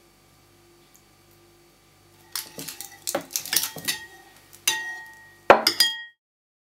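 Metal spoon stirring liquid in a ceramic bowl, clinking against its sides in a quick run of clinks with short rings. The clinks begin a little over two seconds in, the loudest comes about five and a half seconds in, and they stop abruptly.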